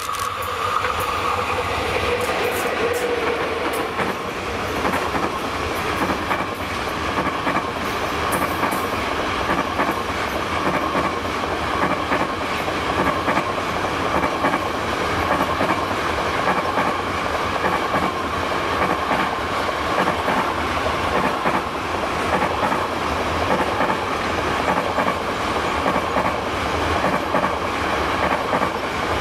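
Intermodal freight train hauled by an EU07 electric locomotive running past: container flat wagons rolling by with a steady rumble and clatter of wheels on the rails. A steady high ringing note sounds over it, and the sound swells about a second in as the train draws close.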